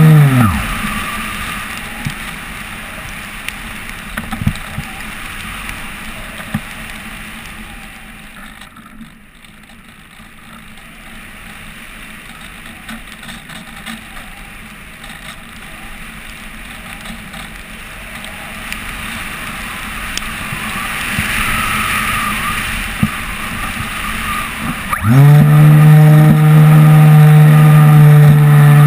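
RC glider's motor and propeller whine cuts off at the start and winds down within half a second. Then comes a long glide with only wind rushing past the nose-mounted camera. About 25 seconds in, the motor spins back up quickly to a loud, steady whine.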